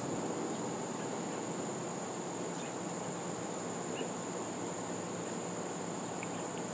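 Steady background hiss with a constant high-pitched whine, and a few faint small clicks as a steel flash hider is turned in the hands.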